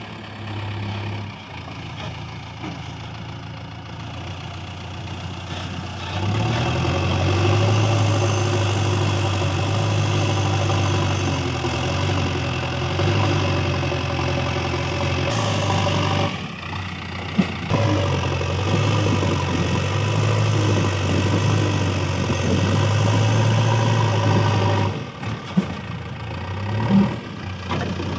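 JCB 3DX backhoe loader's diesel engine running. About six seconds in it gets louder and heavier, dips briefly about halfway through and again near the end, and a couple of short knocks come through.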